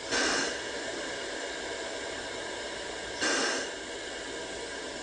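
Standing steam locomotive, Sierra Railway No. 3, hissing steam steadily, with a louder gust of hiss at the start and another about three seconds in.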